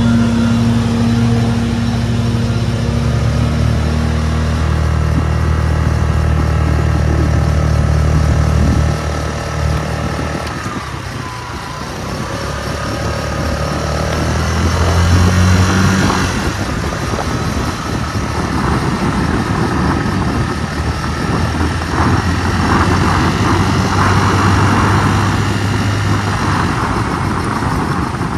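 Chinese 150cc motor scooter engine running under way. Its sound falls off about nine seconds in, is at its lowest around eleven to twelve seconds, builds back up near fifteen seconds and then holds steady.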